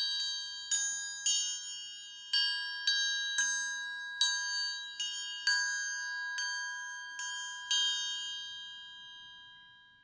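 Cheap toy metal triangle struck with its beater about a dozen times at an uneven pace, each strike ringing with a bright, high metallic tone. The last ring fades away over the final two seconds.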